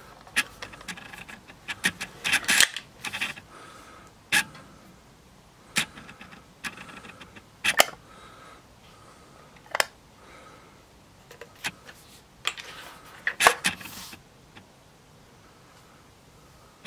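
Sharp metallic clicks at irregular intervals from handling the action of an Air Arms ProSport spring-piston underlever air rifle, as its automatic safety catch and mechanism are worked by hand. The clicks come in a small cluster about two seconds in and are loudest about thirteen seconds in.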